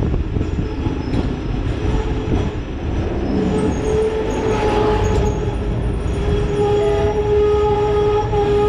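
Hong Kong double-decker tram running along street rails: a steady low rumble of wheels and running gear, joined about three and a half seconds in by a steady whine that holds to the end.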